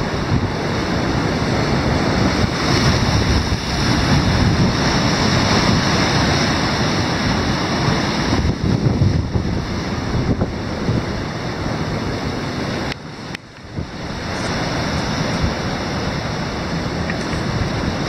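Rough Caspian Sea surf breaking and foaming against shell-limestone boulders, a continuous loud rush, with wind on the microphone. The noise dips briefly about two-thirds of the way through.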